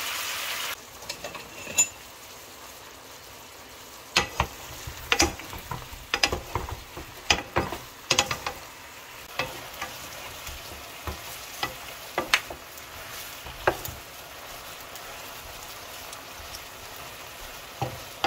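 Chicken drumsticks sizzling in a nonstick frying pan in a soy-and-oyster-sauce glaze. The sizzle is louder at first and drops abruptly about a second in. A wooden spoon then stirs the pieces, knocking and scraping against the pan in a run of short sharp clicks through the middle.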